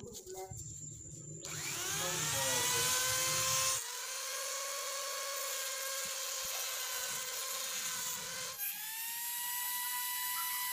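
Mini rotary grinder with a flexible shaft spinning up about one and a half seconds in with a rising whine, then running at high speed, its pitch shifting a couple of times as the speed changes.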